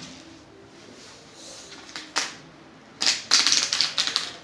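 Crackling and clicking of a household object used as a homemade nature sound effect: one sharp click about two seconds in, then a loud burst of dense crackling near the end.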